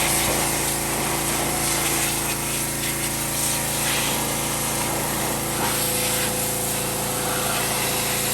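Pressure washer running steadily: a motor hum under a hiss of spray.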